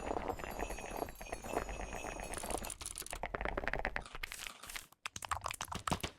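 Rapid typing on a computer keyboard: a fast, uneven stream of key clicks, with a brief pause about five seconds in.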